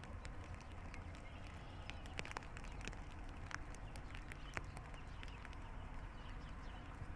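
Light raindrops tapping irregularly on the hood and shoulders of a plastic rain poncho, single drops a few times a second, over a steady low rumble.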